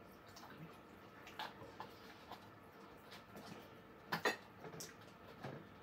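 Faint mouth sounds of someone eating with her fingers: scattered soft clicks and smacks of chewing and sucking on food, with a sharper double click a little over four seconds in.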